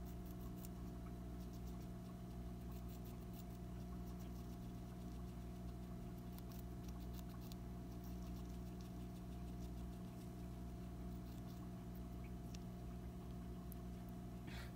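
Hamster nibbling and crunching a treat held in its paws: quick faint clicks in irregular clusters, over a steady low electrical hum.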